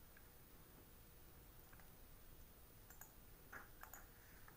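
Near silence: faint room tone with a few scattered soft clicks, most of them bunched about three to four seconds in.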